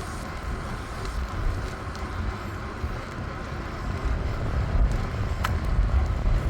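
Wind buffeting the microphone, with a rumble of movement, as a bicycle rides along a path. A single short click about five seconds in.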